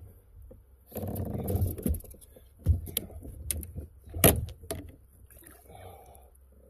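Handling noise of a fishing reel and rod on a kayak as a bass is reeled in and landed: rustling, then a string of sharp clicks and knocks, the loudest about four seconds in.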